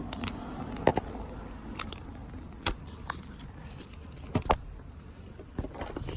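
Tools and body-mount hardware being handled under a vehicle: scattered light clicks and knocks over a low background hum, with sharper ones about a second in and around four and a half seconds in.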